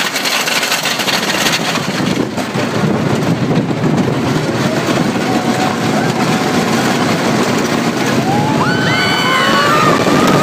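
Wooden roller coaster train rumbling steadily along its wooden track. Near the end, as the train drops, several riders scream.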